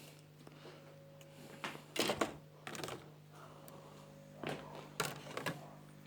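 Clicks and light knocks of a circuit board and small parts being handled on a bench, in short clusters around two seconds in and again near five seconds, over a steady low hum.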